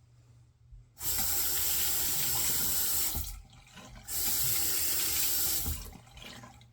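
Water running from a tap into a sink in two spells of about two seconds each, the first starting about a second in and the second about four seconds in.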